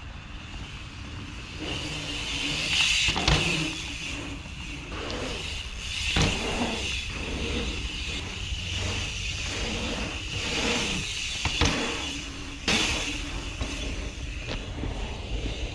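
Mountain bike rolling over an asphalt pumptrack: a steady rushing tyre noise with a constant high whir, swelling as the bike pumps through the rollers, and a few sharp knocks from landings.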